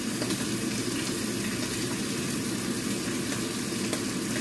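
Food sizzling steadily in a frying pan on the stove, over a steady low hum.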